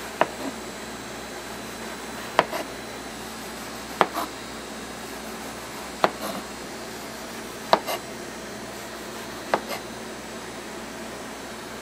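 Kitchen knife cutting through a cotton candy roll and knocking on a plastic cutting board: six sharp knocks about every two seconds, each followed by a softer tap. A steady hiss runs underneath.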